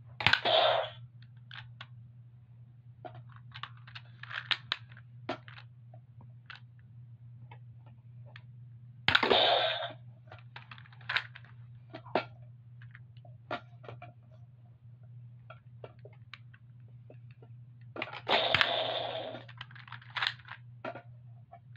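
Spring-powered toy dart blaster fired three times, each shot a short burst of air, with sharp clicks and rattles of the blaster being reloaded and primed between the shots. A steady low hum runs underneath.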